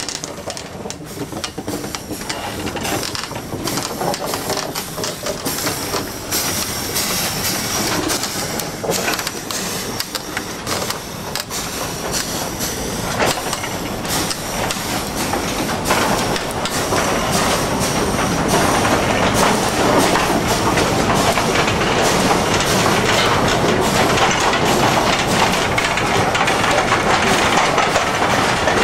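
Narrow-gauge sugar-mill steam locomotive moving with a rake of empty cane wagons: a dense jumble of clanking wheels and couplings on the rails, with hissing steam. It grows louder about halfway through.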